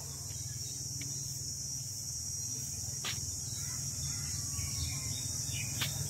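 Steady high-pitched chorus of insects, with a low steady rumble underneath and two faint clicks, one about halfway and one near the end.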